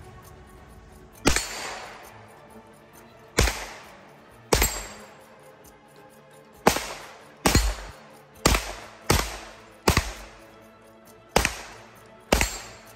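B&T GHM9 9mm carbine firing about ten single shots at an uneven pace, half a second to two seconds apart, each trailing off in a short echo, over background music.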